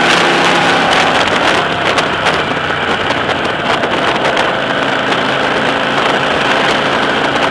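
Motorcycle engine running steadily while being ridden, with wind buffeting the on-board microphone. It is a little louder at first inside the road tunnel, then eases slightly as the bike comes out into the open.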